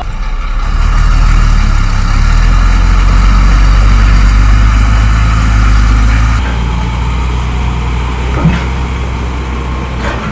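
Heavy truck engine running with a deep, steady rumble, which drops abruptly in level about six seconds in.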